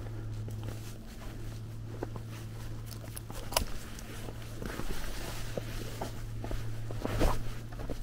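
Footsteps in snow on a walk, irregular soft steps with a few louder ones, over a steady low hum.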